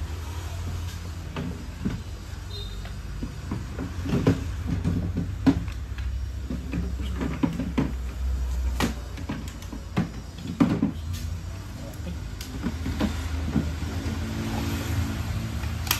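Cordless power tools and batteries being handled, set down and put into a plastic tool case: a string of irregular clicks and knocks, the loudest about four to five seconds in, over a steady low hum.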